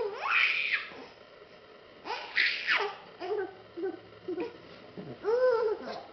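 A baby's high-pitched squeals and short vocal calls in bursts, with the loudest squeals just after the start and about two seconds in, then shorter calls.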